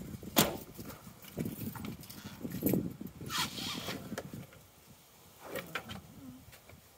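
Irregular clinks, knocks and rattles of hand tools being handled as a socket is fetched, the loudest a sharp knock about half a second in.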